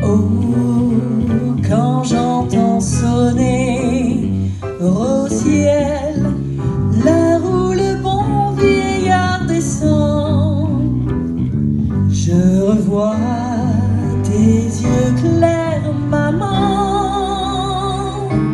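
A woman singing into a microphone through a PA, with live band accompaniment led by bass guitar. The sung line wavers in pitch and ends on long held notes with vibrato near the end.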